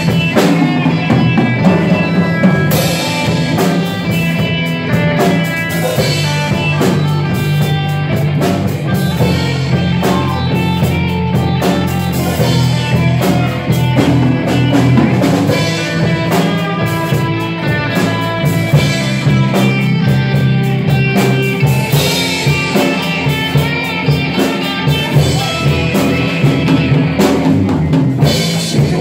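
Live rock band playing: electric guitars, electric bass and a drum kit, loud and steady, with a driving beat.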